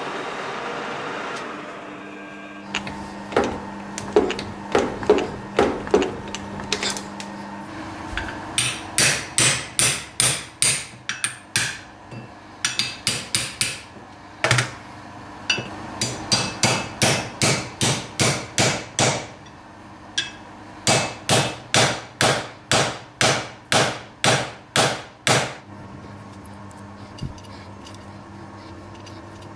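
A lathe running briefly, then a long series of sharp hammer blows on steel, about three a second in runs separated by short pauses, each with a short metallic ring; the hammer is working on a cast flywheel's hub supported on steel parallels in a vise.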